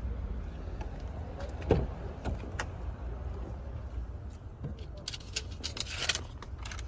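Rear door of a Ram TRX pickup being opened: a sharp latch clunk a little under two seconds in, then scattered clicks and a burst of rustling handling noise near the end, over a low steady rumble.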